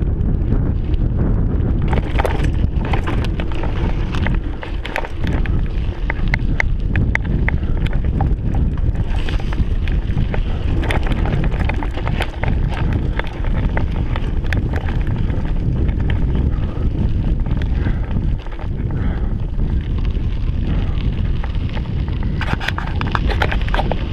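Wind buffeting a mountain bike rider's action-camera microphone, a steady low rumble, with clicks and rattles from the bike jolting over a rough dirt trail.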